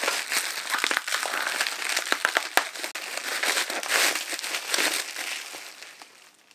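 Plastic bubble wrap around a camera lens crinkling and crackling loudly as it is squeezed and handled in the hands, with many sharp crackles. It dies away near the end.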